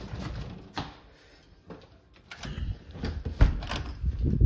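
Handling noise from a handheld phone being moved about: rubbing and a series of knocks and bumps, the loudest about three and a half seconds in.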